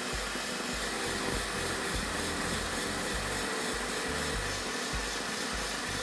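Stand mixer's wire whisk beating eggs and sugar on high speed, a steady motor whir, whipping them toward a thick, pale foam. Background music with a bass line plays along.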